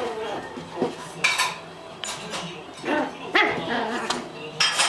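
Toy poodle puppy giving a few short, high barks and yips while playing, with rustling in between.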